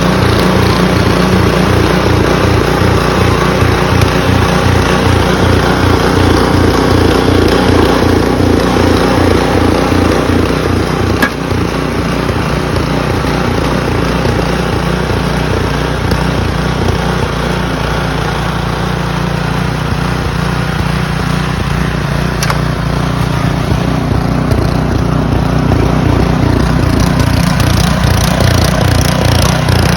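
An engine running steadily with an even, rapid pulsing beat, slightly quieter from about eleven seconds in.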